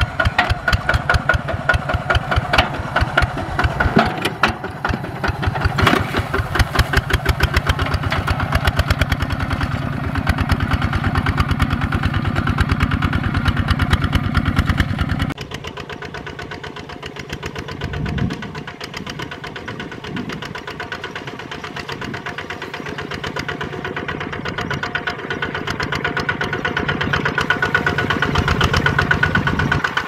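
Single-cylinder diesel engine of a Kubota RT-series walking tractor chugging steadily with rapid, even firing pulses while working a field. About halfway through, the sound abruptly becomes lower and a little quieter, with a brief rise and fall in engine speed a few seconds later.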